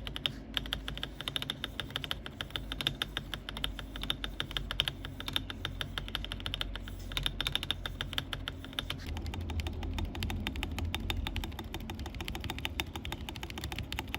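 Fast, steady typing on an Akko 5075B Plus mechanical keyboard with Akko V3 Pro Silver linear switches, gasket-mounted on a polycarbonate plate, giving a rapid, continuous run of key clacks.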